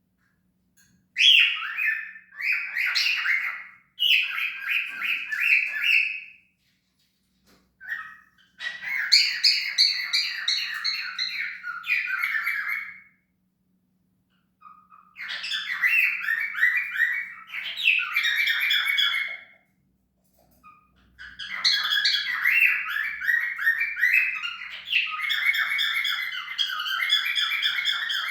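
Cockatiel chattering in four bouts of rapid, repeated short calls, separated by pauses of a second or two.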